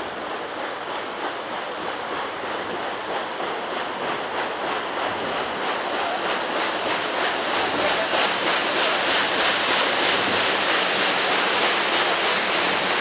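Rushing, churning water, growing steadily louder.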